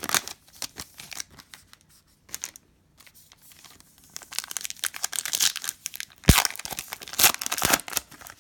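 Plastic wrapper of a Panini Prizm basketball card pack being torn open and crinkled. There are a few scattered crackles at first, then dense tearing and crinkling in the second half, with one sharp snap a little past six seconds.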